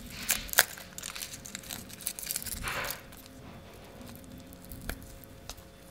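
Papery garlic skins rustling and tearing as cloves are peeled by hand, with small sharp crackles throughout and a longer rustle about two and a half seconds in.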